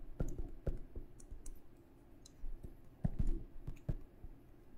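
Light, irregular clicks and taps of a stylus on a drawing tablet during handwriting, a dozen or so, unevenly spaced.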